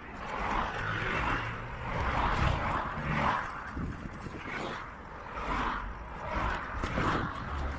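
Wind rushing over the microphone and road traffic during a bicycle ride through city streets. The noise swells and fades every second or so.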